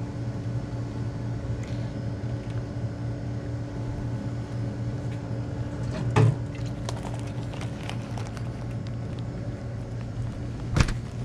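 Steady low hum of a refrigerated glass-door drink cooler running. A single thump comes about six seconds in and a sharp knock near the end.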